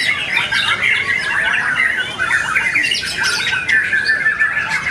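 White-rumped shamas singing non-stop at a songbird contest: a dense, unbroken run of quick whistles, trills and chattering notes, several birds overlapping.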